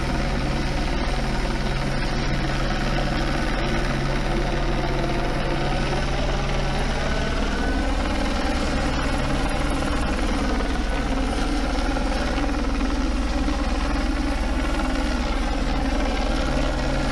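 Police helicopter hovering overhead, its rotor drone steady and unbroken, over a sportbike engine running at low speed whose pitch shifts briefly partway through.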